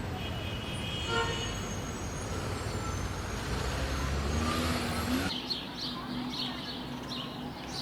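City street traffic: a steady low rumble of passing vehicles with a short horn toot about a second in. About five seconds in it cuts abruptly to quieter ambience with repeated high bird chirps.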